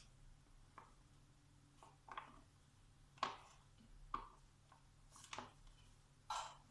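A few soft, irregular clicks and knocks of objects being handled, about six in all, the sharpest about three seconds in, over near silence.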